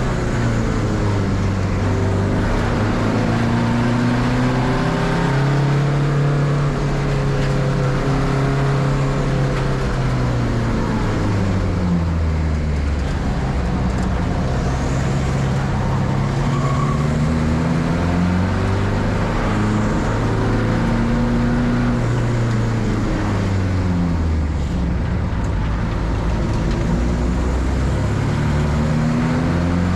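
Racing car engine accelerating and easing off over and over, its pitch climbing and then dropping back every few seconds.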